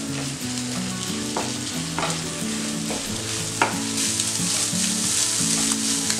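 Egg and chopped vegetables sizzling in a hot oiled nonstick pan while a wooden spatula stirs and scrambles them. A steady frying hiss runs throughout, with a few sharp scrapes of the spatula against the pan.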